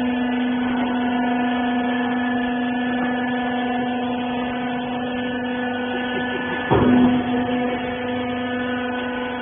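Hydraulic rag baler's electric motor and hydraulic pump running with a steady hum. About seven seconds in, a single sudden loud knock as the press shifts, with the hum briefly strengthening.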